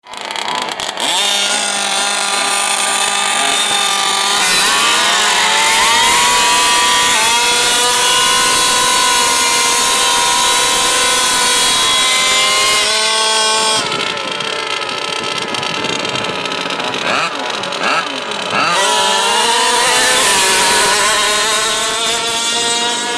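Small two-stroke RC car engines buzzing at high revs. The pitch rises and falls with the throttle and is held steady for several seconds at a time.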